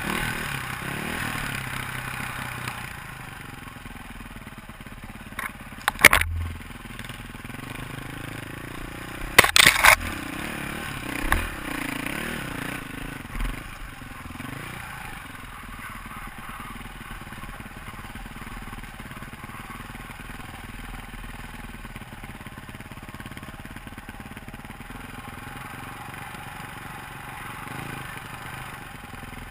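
KTM dirt bike's engine running on a rough dirt trail, its revs rising and falling. Sharp loud knocks come about six seconds in and again around ten seconds, with smaller ones after.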